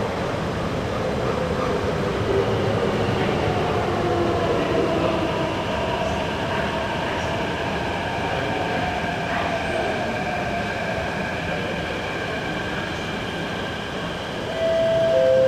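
MTR C-Train metro train approaching through the tunnel toward the platform: a steady rumble with whining tones that slide in pitch. Near the end a loud steady tone starts as the train comes in.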